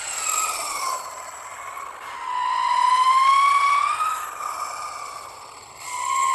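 Electric skateboard motors whining, the pitch rising and falling with the board's speed as the rider accelerates and slows for turns, over the noise of the wheels on asphalt.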